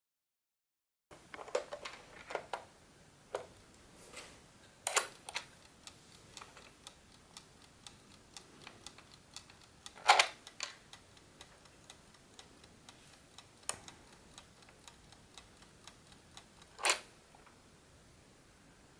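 Irregular clicks and knocks from handling a GARDE classic wooden mechanical chess clock, with three louder knocks spread through.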